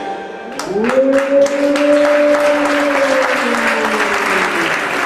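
Audience applause breaks out about half a second in. Over it sounds one long howl that rises quickly, holds, and then slowly falls away.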